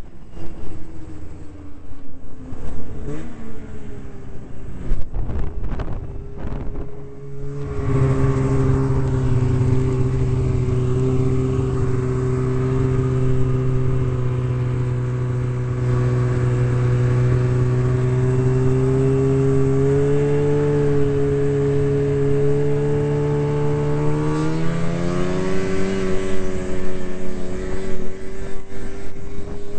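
Snowmobile engine at speed, heard from the rider's helmet: wind rumble on the microphone for the first several seconds, then a steady engine drone that climbs in pitch about three quarters of the way through as the sled speeds up, then holds.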